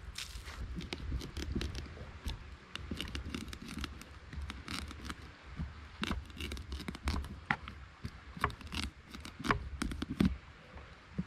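Kitchen knife cutting into the hard rind of a whole pumpkin: an irregular run of short scraping cuts, with a few sharper clicks near the end.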